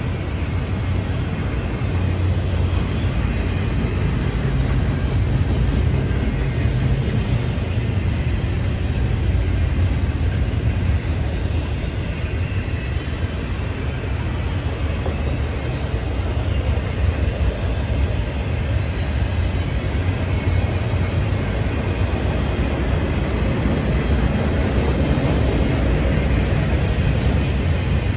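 Norfolk Southern freight train rolling past: a steady rumble of steel wheels on the rails.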